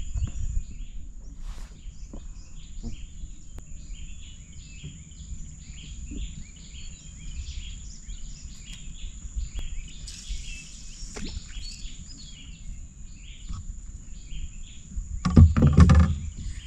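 Birds chirping and calling in short, repeated notes, over a steady high insect drone and a low rumble. About fifteen seconds in there is a brief, louder pitched sound.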